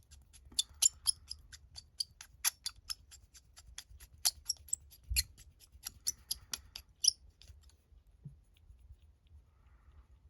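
Hand pin vise being twisted to drill a small hole in a scale-model wheel: a quick run of small sharp clicks, about four a second, thinning out and stopping about seven seconds in.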